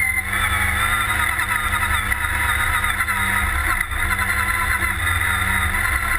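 Redline Revolt off-road buggy's engine running steadily while driving along a dirt track, with a brief dip in revs about four seconds in.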